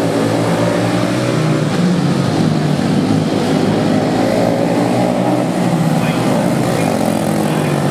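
Several junior stock quarter midget race cars with small Deco engines running at racing speed around a dirt oval, their engine notes shifting up and down in pitch as they lap past.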